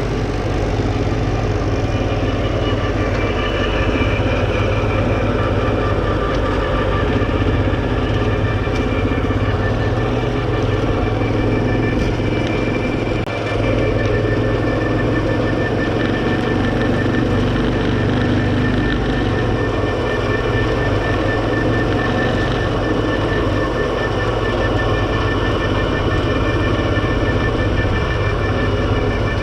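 Kawasaki quad bike engine running steadily, heard close from the camera mounted on the bike, with only a brief dip in level about halfway through.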